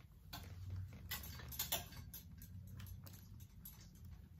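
Faint, irregular clicks and ticks over a low, steady hum.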